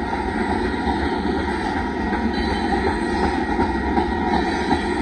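Loaded aggregate cars of a Union Pacific rock train rolling steadily past: a continuous rumble of steel wheels on rail.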